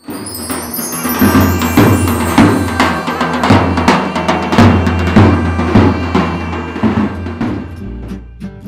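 Background music with a steady drum beat over bass; near the end the drums fall away.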